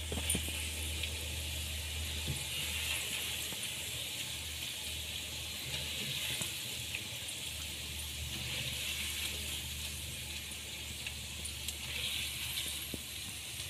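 Pakoras deep-frying in hot ghee in a kadai: a steady sizzle, with a few light clicks of a slotted spoon lifting them out.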